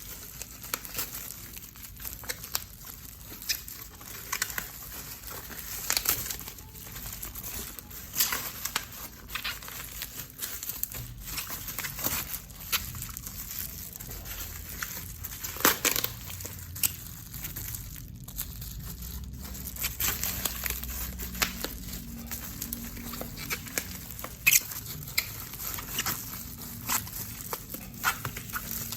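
Packaging being handled and unwrapped: irregular crinkling and rustling with scattered sharp clicks and taps.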